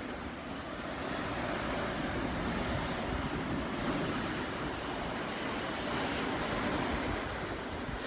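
Typhoon-force wind rushing past a building, a steady dense roar with no rain, growing louder about a second in.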